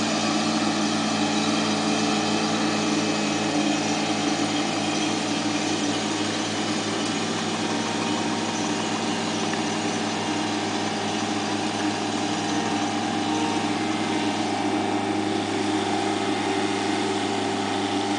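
Utility-vehicle engine running at a steady, unchanging speed, a constant hum with no revving.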